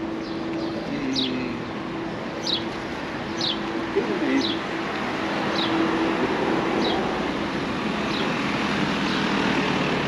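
Street sounds: a bird repeats a short, high, falling chirp about once a second, while passing cars add tyre and engine noise that builds through the second half.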